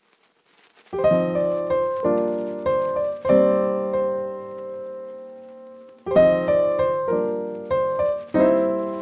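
Background piano music. After about a second of near silence, chords are struck and left to ring, and the phrase starts again about six seconds in.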